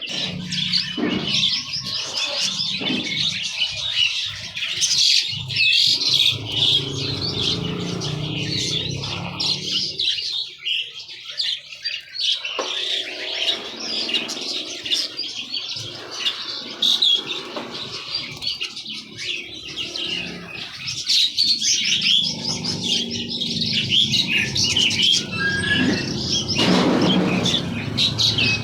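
Many small songbirds chirping and twittering at once, a dense, overlapping chatter, with a low rumble underneath.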